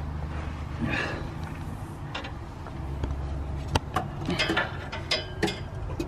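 Sharp clicks and short metallic knocks from hand work on a brake line under a school bus chassis, bunched together in the second half. A steady low rumble runs beneath them.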